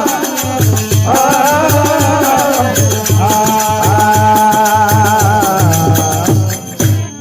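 Marwari devotional folk music (desi bhajan): a held, wavering melody over a steady drum beat and rattling, jingling percussion. The music breaks off suddenly near the end.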